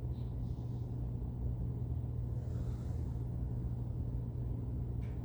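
Steady low background hum with a faint rumble, unchanging throughout.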